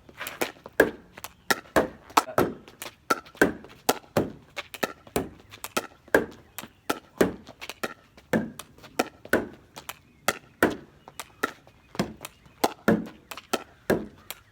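Quick, steady rally of a plastic pickleball being hit with a paddle against a garage door: sharp pops of paddle on ball and ball on door, several a second.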